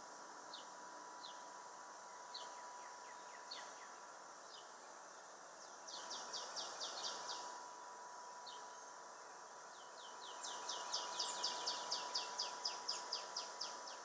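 Songbirds calling: scattered short, high, downslurred notes, then two quick runs of the same note repeated, the second longer and louder near the end. A faint steady tone hums underneath.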